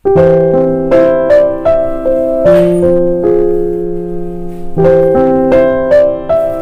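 Background piano music: a gentle melody of struck notes over held chords, starting abruptly right at the beginning.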